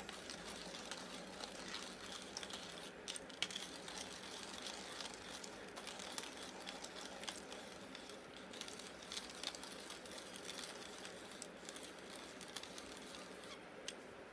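Cheap stainless-steel hand coffee grinder with ceramic burrs grinding beans as its crank is turned, heard faintly as a fine crunching hiss with scattered small clicks, in sped-up footage.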